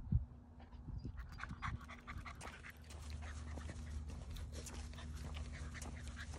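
Chow Chow puppy panting, with scattered light rustles and clicks over a steady low rumble.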